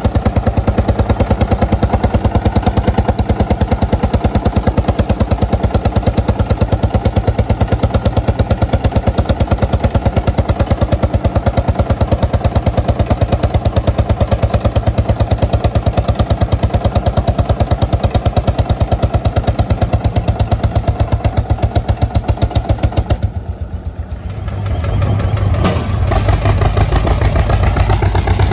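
Vintage tractor engine running with a loud, rapid, even firing beat. Near the end the sound drops away briefly and a deeper engine beat takes over.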